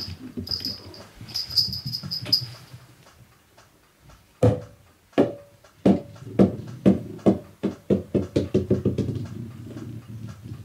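A small rubber super ball bouncing on a wooden floor, starting about four seconds in. A dozen or so hard taps come faster and closer together as the bounces die down, until they run together into a quick patter as the ball comes to rest.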